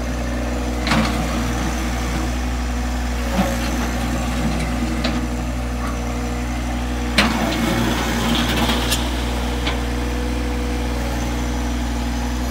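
John Deere 1023E compact tractor's three-cylinder diesel running steadily, with a few sharp knocks as the front loader bucket works, the loudest about seven seconds in.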